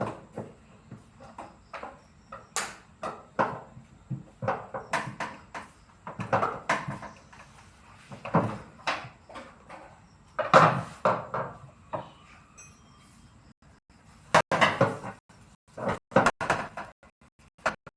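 Irregular knocks, clicks and clunks of front-loading washing machine parts being handled and worked on by hand, some sharp and some heavier, with a busier, louder stretch about ten seconds in and again near the end.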